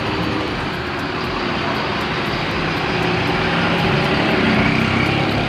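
A large vehicle, most likely a bus, driving past: steady engine rumble and road noise that swells a little near the end.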